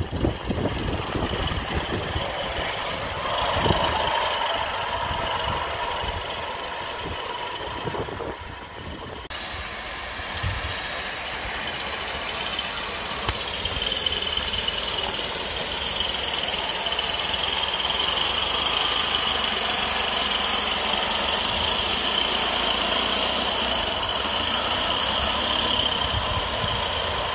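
3.5-inch gauge live-steam B2 locomotive and riding car running along the elevated track, wheels rolling on the rails with irregular low knocks. A steady high-pitched ring comes up about halfway through and grows louder.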